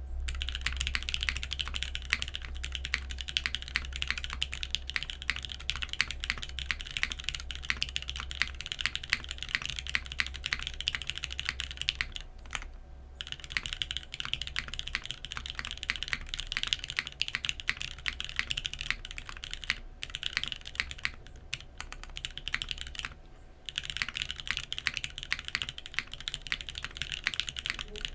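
Continuous fast typing on a custom 60% mechanical keyboard with lubed Cherry MX Black linear switches, 56 g springs and filmed housings, mounted in an aluminium plate under GMK keycaps. It pauses briefly about halfway through and again around three-quarters of the way through.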